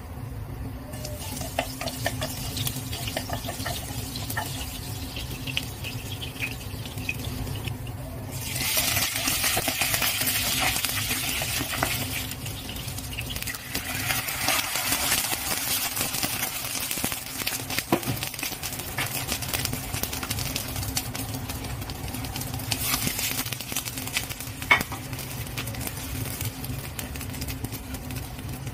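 Oil crackling faintly in a hot nonstick frying pan, then a sudden loud sizzle about eight seconds in as scallions hit the oil. Water is then poured from a kettle into the pan for several seconds, with a couple of sharp knocks of a utensil on the pan.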